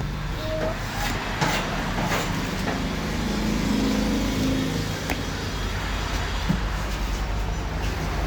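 Steady outdoor background noise with a low traffic rumble, and a few faint clicks.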